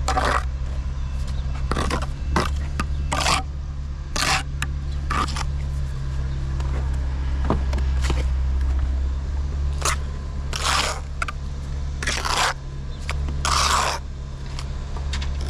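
Repeated short scraping strokes, about a dozen at irregular intervals, over a steady low hum.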